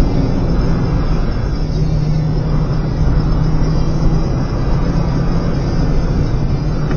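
BMW E36 318i's M40 1.8-litre four-cylinder engine running at speed, heard from inside the cabin as a steady engine note over road and tyre rumble.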